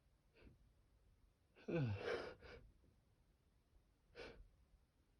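A person sneezes once through an N95 face mask: a sudden noisy blast with a voiced cry that falls in pitch, about two seconds in. Faint short breaths come before and after it.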